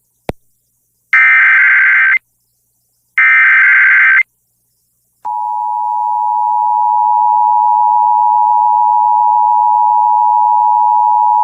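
Emergency Alert System tones: two one-second bursts of the screeching digital SAME header data, then the steady two-tone EAS attention signal (853 and 960 Hz) sounding from about five seconds in, announcing a tornado warning. A short click comes just before the bursts.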